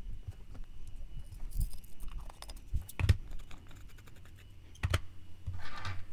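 Small clicks and rustles of craft materials being handled on a work table, with two sharper clicks about three and five seconds in.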